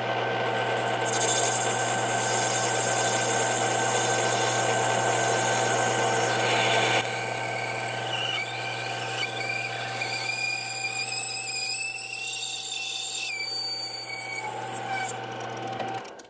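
Small benchtop lathe running, its motor and gearing humming steadily, while a boring bar takes a light cut inside a Delrin bushing. About seven seconds in the sound drops and a wavering high squeal rises over the running machine. The lathe is switched off and runs down near the end.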